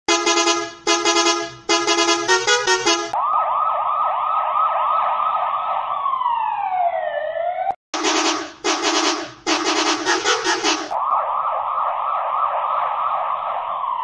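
A bus horn sounds three long blasts and then a quick run of short toots at changing pitch. A police car siren follows, warbling fast and then winding down in pitch. The horn-then-siren sequence plays twice.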